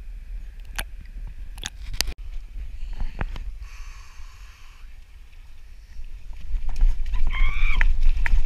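Muffled water sound picked up by a waterproof action camera carried by a swimmer as it moves underwater and then out of the water. There is a low rumble with scattered clicks and knocks from the camera housing. In the last second or two the water sloshing and splashing grows louder, with a brief voice-like cry.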